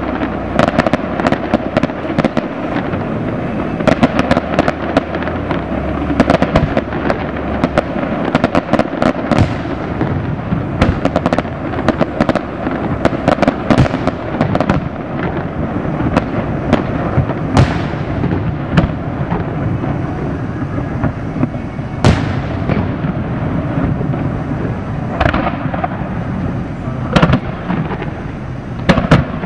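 Fireworks display: a continuous barrage of aerial shell bursts, sharp bangs following each other closely over a steady rumble. A few of the bursts trail off in a fading hiss.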